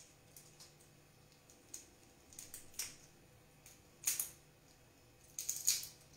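Tiger prawn shell crackling as it is peeled off by hand: short, faint crackles in a few clusters, the loudest about four seconds in and again near the end.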